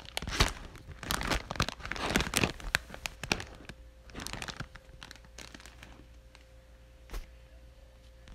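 Plastic wrapping crinkling and rustling as a bag of bananas is handled and set into a shopping cart. The rustling is busiest in the first few seconds, then dies away, with a single sharp click about seven seconds in.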